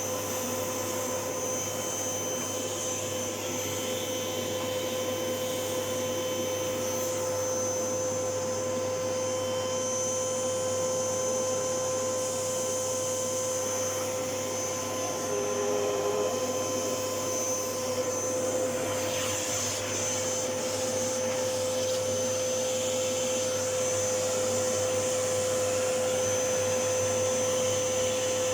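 Vacuum cleaner running steadily: a constant motor whine over a rushing hiss, at an even pitch throughout.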